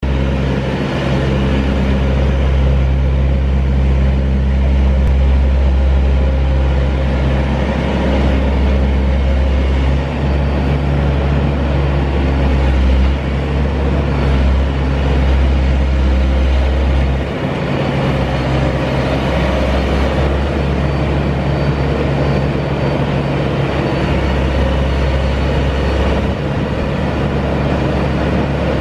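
Perkins diesel engine of a 1999 Kramer 808 wheeled excavator running as the machine drives, a steady low drone. About two-thirds of the way through, the deepest part of the drone drops off, then comes back near the end.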